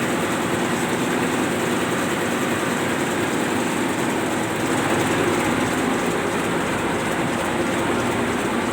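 Tugboat's large main diesel engines running steadily at low rpm in the engine room, a loud, even mechanical din. At this low engine speed the turbocharger is not whistling.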